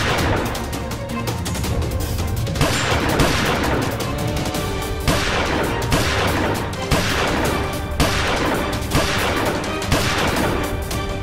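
Action background music with a steady bass, overlaid with repeated gunfire sound effects: sharp bangs every second or two, each fading away.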